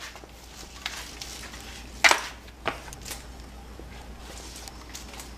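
A few sharp metallic clinks and knocks, the loudest about two seconds in, over a low steady hum.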